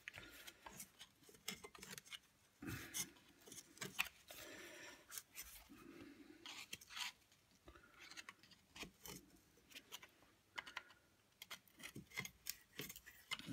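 Faint scraping and clicking of a screwdriver blade prying apart the two halves of a Bosch alternator's metal housing, worked in short strokes around the rim until the halves separate.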